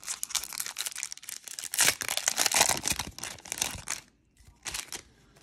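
Foil wrapper of a 1993 Donruss baseball card pack being torn open and crinkled by hand, a dense crackling rustle that is loudest about two seconds in and dies away near the four-second mark, with one more short rustle near the end.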